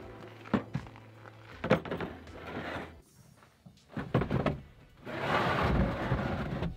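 Gear being packed into a pickup truck's bed: several sharp knocks and thunks of hard plastic storage cases and lids. Near the end comes a longer, louder rough noise of about a second and a half as something is moved about in the bed.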